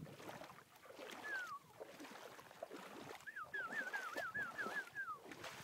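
A bird calling: a single whistled note sliding downward, then a quick run of about seven wavy whistled notes. Underneath, footsteps crunching on wet gravel as the walker comes out of the shallow water.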